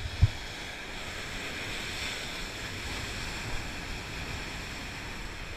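Sea waves washing in over the rocks of a jetty, a steady rushing hiss, with a short low thump just after the start.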